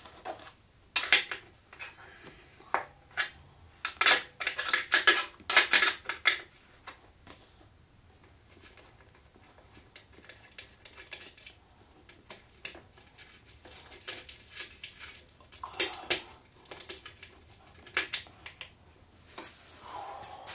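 Metallic clinks and clicks of a 7/16 wrench working the bolt at the back of a motorcycle seat, coming in irregular clusters. The busiest stretch is a few seconds in, with a quieter middle and two more bursts near the end.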